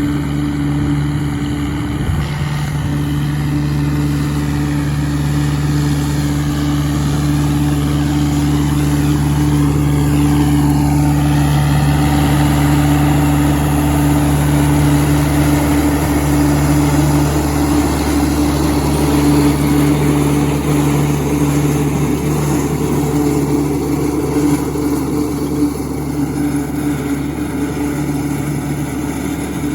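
Turbocharged John Deere 3020 tractor engine running at a steady speed.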